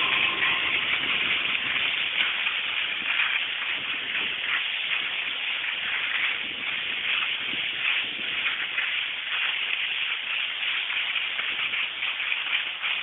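Skis scraping and sliding over packed snow during a downhill run, a steady rushing noise with small rises and dips throughout.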